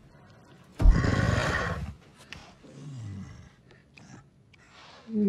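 A creature's roar, about a second long and opening with a sudden hit, followed a moment later by a quieter growl that falls in pitch.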